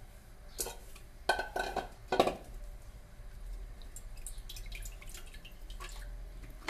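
A few sharp knocks and clinks with a short ring, as of a metal pot and knife being handled, then from about four seconds in light splashing and dripping of water as a mushroom is washed in an aluminium pot.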